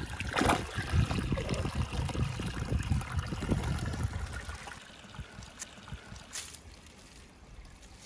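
Hands splashing and groping in shallow creek water, uneven and busy for about the first half. Then the fainter steady trickle of the stream, with two brief sharp sounds near the end, about a second apart.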